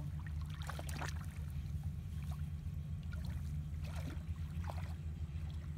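Hands sloshing and splashing through shallow muddy water while groping for fish, with a few short splashes, about a second in and again around four seconds in. A steady low hum runs underneath.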